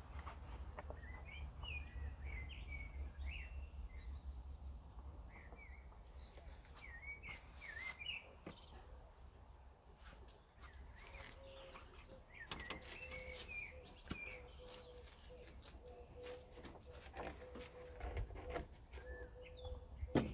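Birds chirping in short bursts over a low rumble of outdoor background noise, with scattered light clicks; a faint steady hum sets in about halfway through.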